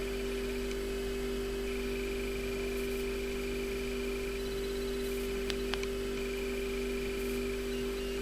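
Steady electrical hum, two constant low tones with faint high whines over them. There are two brief clicks about five and a half seconds in.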